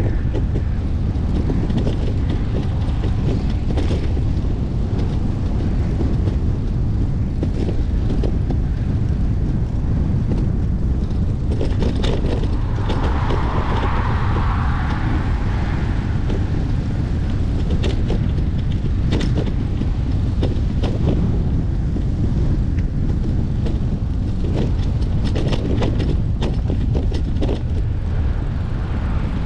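Wind rumbling on the microphone of an action camera riding along on a bicycle: a steady low roar with scattered short clicks and rattles, and a brief rise in hiss about halfway through.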